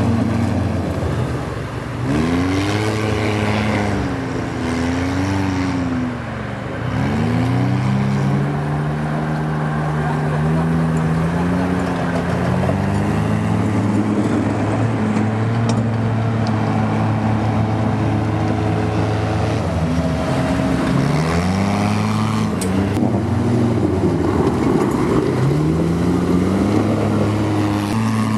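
Tinger tracked amphibious ATV's rear-mounted, water-cooled petrol engine running under load, its pitch rising and falling again and again as it revs up and eases off, over a steady low drone.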